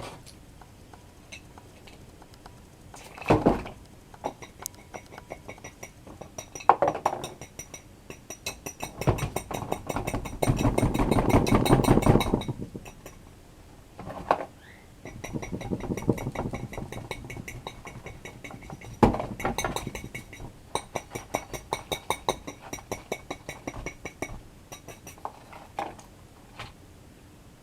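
Household objects being handled and put away: a long run of small clicks, clinks and knocks, with two longer stretches of rustling handling noise in the middle.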